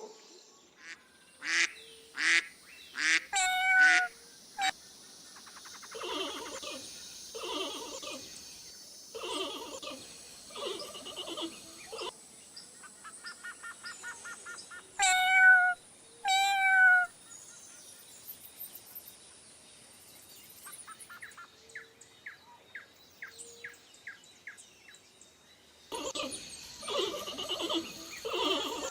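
A string of assorted animal calls: loud short cries that fall in pitch, in a cluster near the start and a pair around the middle, with softer repeated calls and runs of rapid clicking between them.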